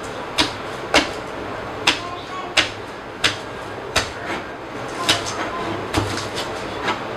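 Wide-bladed kitchen knife slicing spring onions on a wooden cutting board: a sharp knock of the blade on the board about every two-thirds of a second, around ten chops in all.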